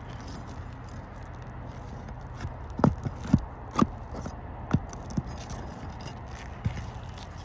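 Roof snake tool being worked under a three-tab asphalt shingle: scraping and rattling with a handful of sharp clicks and knocks, most between about three and five seconds in, over a steady low hum.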